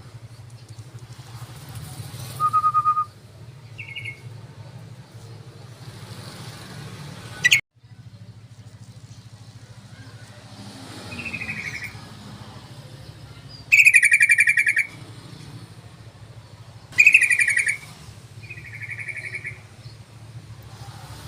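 Yellow-vented bulbul (trucukan) calls: scattered short notes, then two loud harsh chattering calls near the middle and about three seconds later, over a steady low hum.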